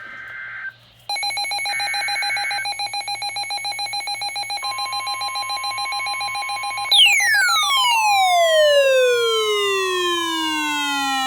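Emergency alert tones: short screechy data bursts, then a rapidly pulsing electronic alarm tone. A steady high tone joins about halfway, and from about two-thirds in, repeated falling siren-like sweeps play over the steady tone.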